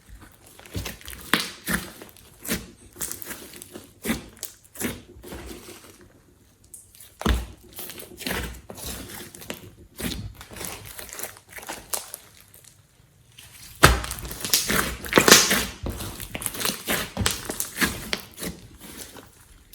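Glossy slime mixed with clay and glitter being kneaded, pressed and stretched by hand: irregular sticky clicks, pops and squelches. A sharp louder pop about two-thirds of the way in starts a denser, louder run of them.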